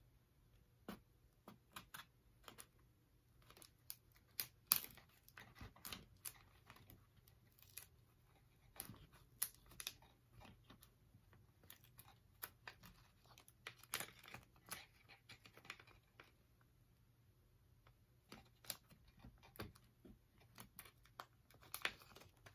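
Faint, irregular clicks, taps and crinkles from fingernails and adhesive vinyl letters being pressed and smoothed inside a small wooden box, with near silence between them.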